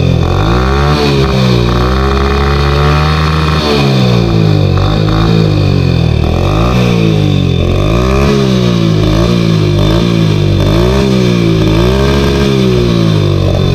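Hero Honda motorcycle's single-cylinder engine revved hard while standing, through an aftermarket M4 exhaust with its dB killer removed: a loud, raw exhaust note held high for about three seconds, then blipped up and down about once a second.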